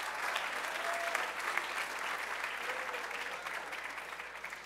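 Audience of students applauding, many hands clapping together, dying away near the end.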